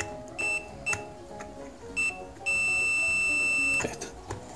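Digital multimeter's continuity buzzer: a few short high beeps as the test probes make and break contact, then one steady beep lasting over a second as the circuit through the contacts reads closed. Background music underneath.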